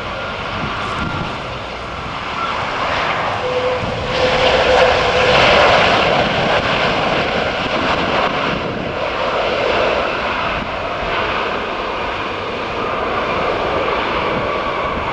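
Wide-body jet airliner's engines running as it rolls along the runway, a steady jet noise that swells to its loudest about five seconds in and then eases slightly.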